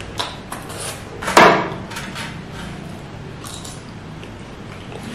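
Close-miked eating sounds: chewing and mouth clicks over a mouthful of saucy baked pasta, and a metal spoon scooping in an aluminium foil tray. Several short clicks, with one brief louder burst about a second and a half in.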